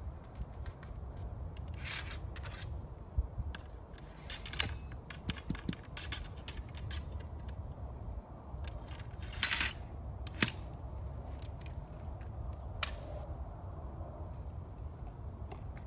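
Muzzle-loading an 1853 Enfield rifle musket: the steel ramrod clinking and scraping in the barrel as it is worked and drawn out, with scattered metallic clicks and rattles from the rifle. Brief scrapes come about two seconds in and again past halfway, and a single sharp click about two-thirds through.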